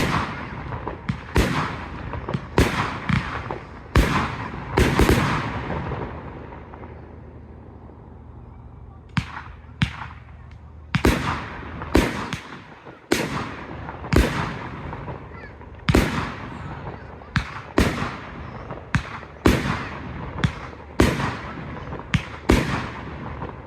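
Fireworks bursting in a professional display: sharp bangs, each with a trailing echo. A dense cluster comes first, then a short lull, then a steady run of about two bangs a second.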